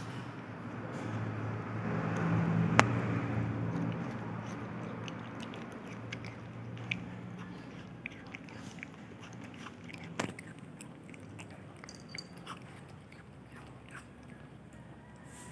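A cat chewing and biting chunks of fresh coconut meat, with many small wet, crunchy clicks. Two sharper clicks stand out, one about three seconds in and one about ten seconds in. A low hum swells in the background during the first few seconds and fades away by about the middle.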